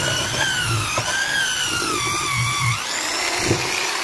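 Handheld electric angle grinder with a wire wheel brush scrubbing rust off a metal grinder housing. The motor's whine wavers up and down as the brush is pressed in and eased off, and rises sharply near the end of the third second as the load comes off.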